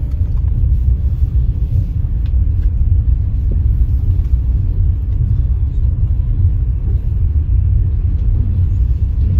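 Passenger train in motion, heard from inside the carriage: a steady, deep rumble of wheels on track.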